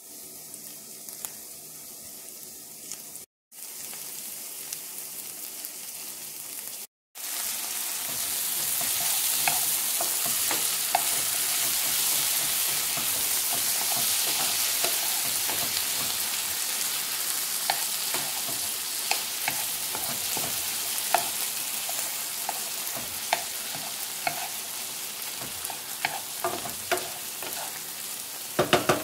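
Diced onion, peppers and tomatoes sizzling as they sauté in butter in a nonstick frying pan over medium-high heat, with a spatula scraping and clicking against the pan as they are stirred. The sizzle is quieter for the first few seconds, breaks off briefly twice, and is louder from about seven seconds in, with the spatula clicks coming more often near the end.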